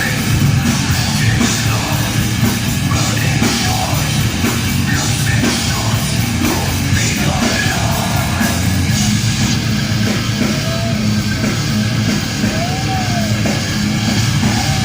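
Heavy metal band playing live at full volume: distorted electric guitars, bass and a drum kit.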